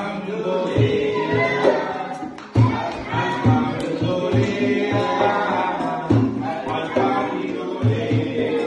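A man and a group of children singing a song together, over a low thumping beat about twice a second.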